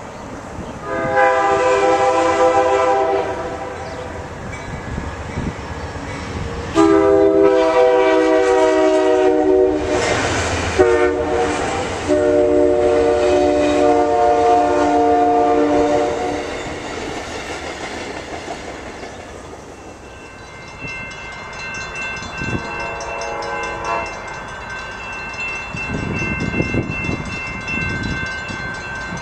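Passenger train horn sounding long blasts: one of about two seconds, then a longer one that runs straight into another of about four seconds. After a pause a steady high ringing comes in, then one short horn blast, and the rumble of a passing train near the end.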